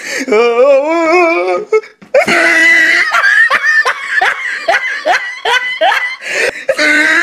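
Loud laughter: a drawn-out, wavering laugh, then, after a short break about two seconds in, rapid bursts of laughing at about three a second.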